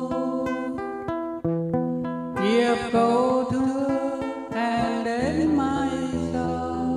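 A man singing a Vietnamese ballad into a microphone, accompanied by a fingerpicked acoustic guitar.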